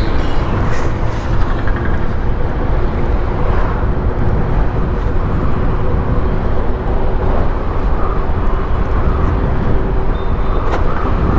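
Steady rush of wind on the microphone and tyre-on-road noise from a BGauss B8 electric scooter ridden at around 40 km/h. There is no engine sound, and the electric motor is not heard over it.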